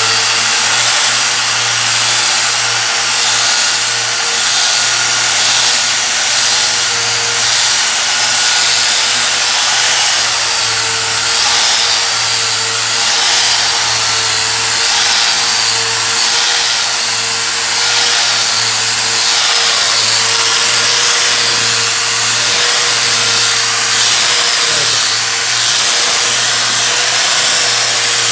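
Electric angle grinder running steadily with a 1500-grit dry resin diamond polishing pad pressed on a marble floor: a steady motor whine whose pitch wavers slightly, over the hiss of the pad rubbing dry on the stone.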